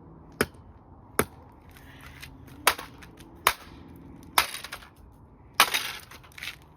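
Hammer blows on an old alarm clock: six sharp strikes about a second apart, the last two followed by a brief crunching rattle of breaking pieces.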